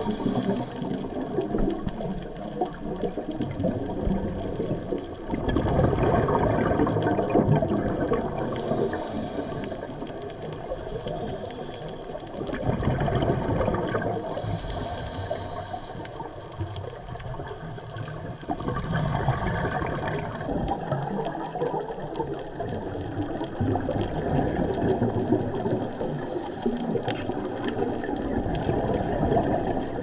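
Scuba regulator breathing underwater: exhaled bubbles rush and gurgle in long surges several seconds apart, with quieter inhalations between, and faint scattered clicks throughout.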